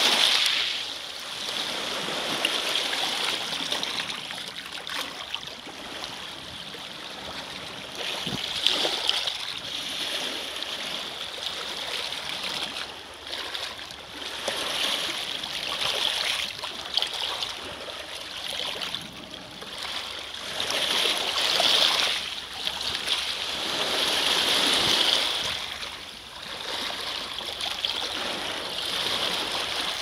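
Small lake waves washing in over a shore of rounded pebbles: a rush of water over stones that swells and fades every few seconds.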